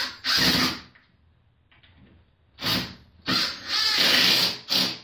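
Cordless impact driver (called a hammer drill) driving a screw into plywood in short bursts: one burst at the start, then four more in quick succession from about halfway through.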